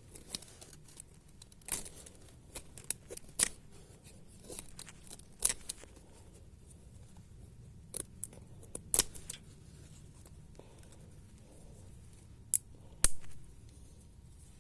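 A knife cutting and scraping at something in a series of short, irregular sharp strokes, with a sharp click near the end the loudest.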